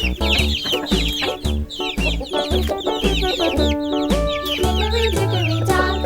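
Instrumental break of a children's nursery-rhyme song with a steady bass line, over which chickens call continuously in many short, high clucks and peeps.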